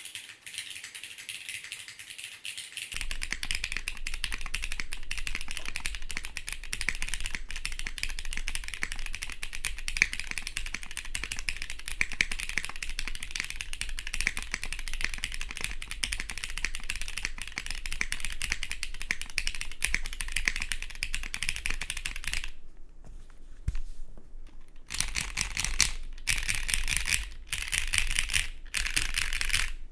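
Fast, continuous typing on a plateless custom mechanical keyboard with lubed, filmed Cherry MX2A Orange switches, a 1.6 mm PCB and GMK ABS keycaps: a dense stream of keystroke clacks. The typing all but stops about 22 seconds in, resumes about three seconds later, and breaks briefly twice more near the end.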